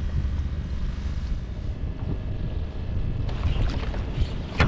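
Wind buffeting the microphone on a kayak at sea, a steady low rumble, with lighter rustling from about three seconds in and one sharp click near the end.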